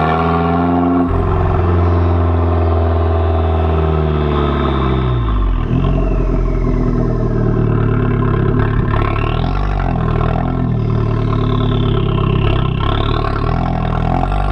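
Abarth 695 Biposto's turbocharged 1.4-litre four-cylinder heard right at its Akrapovič exhaust tailpipe while driving. The loud exhaust note sinks slowly in pitch, dips about five seconds in, then climbs again as the car pulls.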